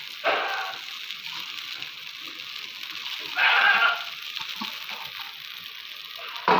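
Soaked sago pearls being tipped from a steel bowl into a hot kadhai, the pan sizzling steadily. Two louder half-second sounds come through over the sizzle, about a quarter of a second in and at about three and a half seconds.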